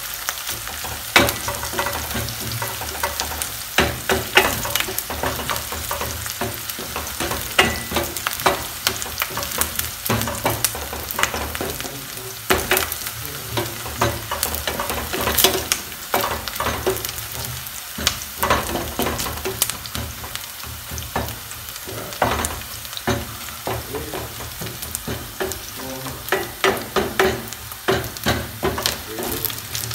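Sliced red onions sizzling as they fry in a stainless steel pan. A wooden spoon stirs them, knocking and scraping against the pan at irregular moments. The onions are being cooked until golden brown.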